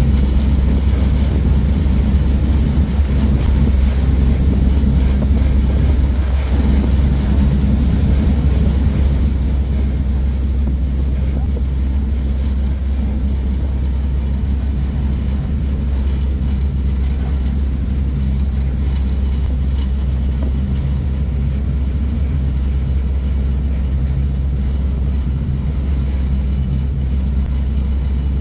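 A passenger ferry's engines run steadily under way with a deep, even drone, over the rush of the propeller wash and wind. It eases slightly about nine seconds in.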